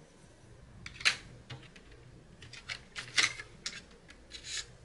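Faint, scattered light clicks and short rustles of hands handling paper and colored pencils, bunched together in the second half.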